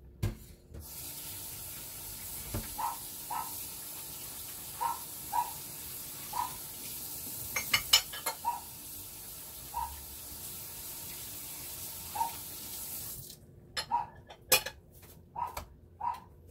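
Water running from a tap, a steady hiss that starts just after the beginning and is turned off about thirteen seconds in. Short high whimpers come every second or so throughout, and a few sharp clicks follow once the water stops.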